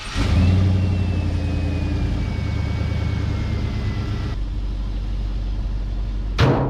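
International Travelall's swapped-in 4.8 L LS V8 running just after being started, with a faint whine that slowly falls in pitch. The sound changes abruptly a little past halfway, and a sharp knock comes near the end.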